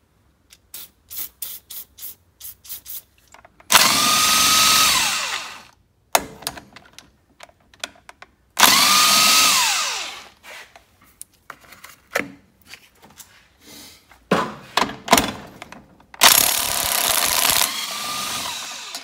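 Electric power tool driving a socket to loosen the fasteners holding the fan and flywheel of a Briggs & Stratton V-twin. It runs in three bursts, each ending with the motor's whine falling as it winds down, with light clicks and knocks of the socket and parts in between.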